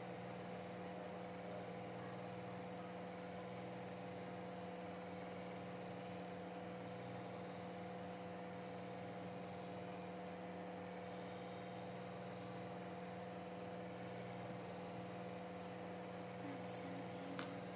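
Steady electrical hum with a faint hiss, holding several fixed pitches, and a few faint clicks near the end.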